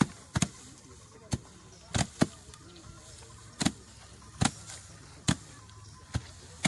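Sticks beating harvested grain in threshing: about nine sharp strikes at uneven spacing.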